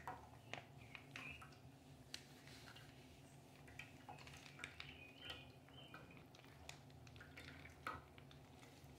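Faint trickle and drip of cooking oil poured from a squeezed plastic pouch into a frying pan, with scattered small clicks throughout.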